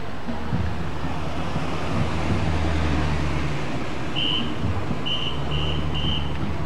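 Parade vehicles rolling past with wind on the microphone, a steady low rumble. From about four seconds in, a run of short high tones at one pitch sounds several times.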